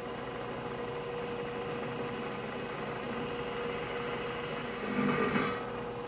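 Bridgeport milling machine's spindle running with a center drill, a steady motor hum with one steady tone. About five seconds in, a brief louder, rougher scraping as the center drill bites into the steel tubing.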